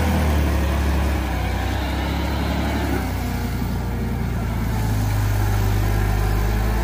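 Toyota forklift's engine running steadily as it is driven, a low, even engine note.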